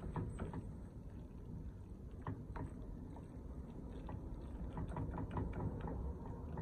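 A spoon pushing and spreading cooked macaroni and cheese in a glass baking dish: soft squishing with scattered light taps and scrapes against the glass, over a low rumble.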